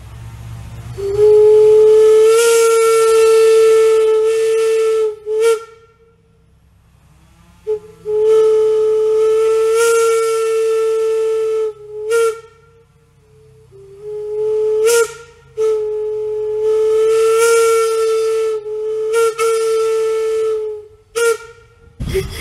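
Locomotive steam whistle blown on compressed air rather than steam, sounding one steady note in three long blasts, with short toots between them.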